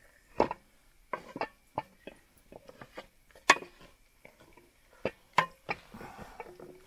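Cooking gear being handled at a camp kitchen: about a dozen irregular sharp knocks and taps, the loudest about three and a half seconds in, then a softer rustle near the end.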